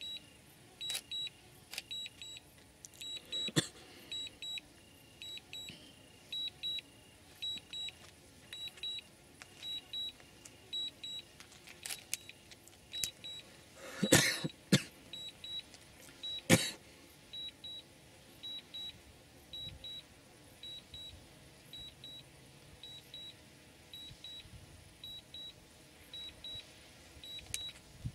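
Electronic beeping: short high double beeps repeating evenly about every 0.7 s. A few loud sharp knocks come around the middle.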